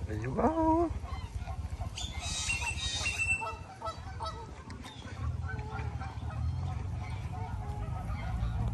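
Geese honking, with a loud rising call about half a second in and many shorter calls after it, over a steady low rumble. A brief hiss comes about two to three seconds in.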